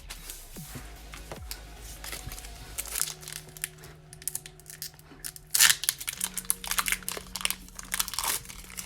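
Foil Pokémon booster pack wrapper crinkling as it is handled and torn open, with a burst of loud crackling about halfway through. Faint background music underneath.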